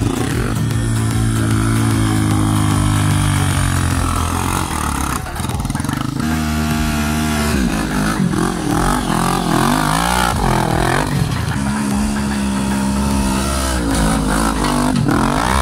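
Yamaha Raptor 350 quad's single-cylinder four-stroke engine revving hard under load on steep sandy climbs, its pitch rising and falling several times.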